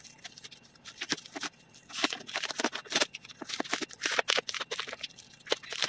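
Packing tape being torn and peeled by hand off the top of a cardboard shipping box: a run of short, irregular rips and crackles.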